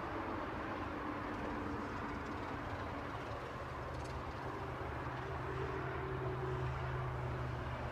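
Steady outdoor background rumble with a low mechanical hum that grows louder in the second half, with one faint tick about four seconds in.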